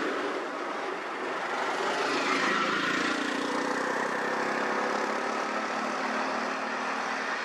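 Road traffic driving slowly past close by: a lorry and then a bus, their engines running at low speed, with a three-wheeler auto-rickshaw's small engine coming up near the end.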